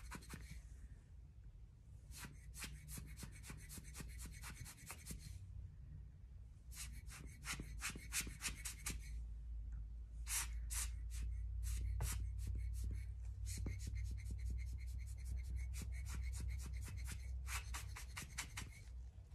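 Alcohol ink blower, a hand-squeezed rubber bulb, pumped rapidly in runs of quick clicking puffs, about four a second, that stop and start several times over a low rumble. It is blowing blending solution and ink outward across the panel.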